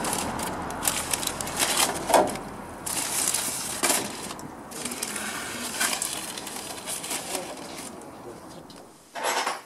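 Parchment-paper parcels crinkling and rustling as they are handled and set on a gas grill, with scattered light clicks and knocks. The rustling thins out toward the end, then there is a short loud burst of noise just before the end.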